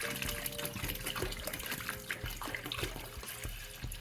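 Liquid sloshing and splashing as a rusty sheet-metal computer housing is pushed down into a tub of distilled white vinegar, with many small knocks and drips.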